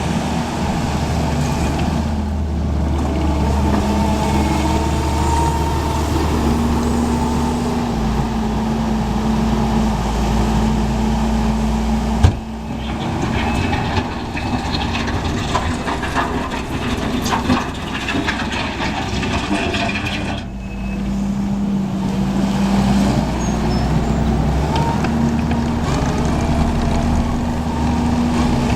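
Kubota SVL74 tracked skid steer's diesel engine running, its engine speed changing a few times. There is a single sharp knock about twelve seconds in.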